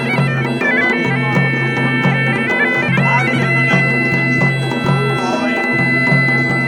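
Wedding band music: a reed-pipe melody stepping over a steady drone, with a drum beat underneath.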